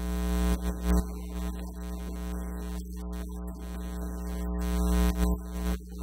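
Steady electrical mains hum from a sound system, with a few soft knocks.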